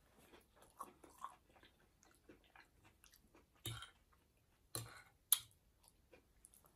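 A person chewing food close to the microphone, with irregular small mouth and chewing noises. A few louder chews come past the middle, and one sharp click comes just after five seconds in.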